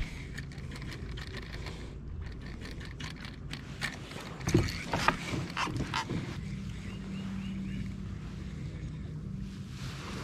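Steady low hum from the fishing kayak's drive, a little stronger from about six seconds in. Between about three and six seconds in there is a cluster of sharp clicks and knocks from rod and reel handling.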